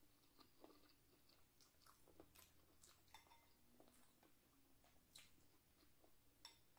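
Faint close-up chewing of saucy boiled shellfish, with scattered soft wet clicks and smacks of mouth and fingers.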